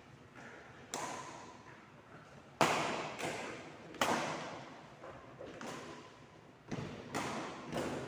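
A ball being hit back and forth in a rally in a large echoing room: sharp hits and bounces about once a second, each ringing out in the reverberation.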